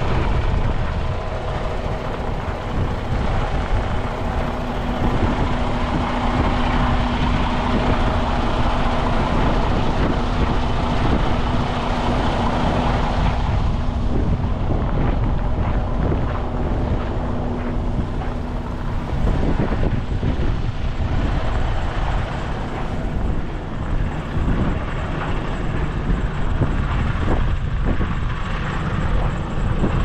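Blizzard wind buffeting the microphone as a loud, steady rumble and rush. A low steady hum runs under it and stops about two-thirds of the way through.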